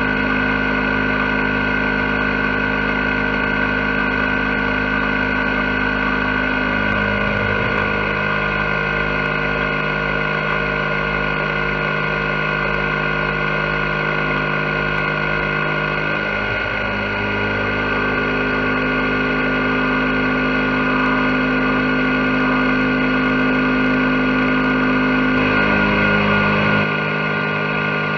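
CNC milling machine cutting an aluminium block under flood coolant: a steady whine from the spindle and stepper-driven axes, its tones shifting in pitch a few times as the toolpath changes direction.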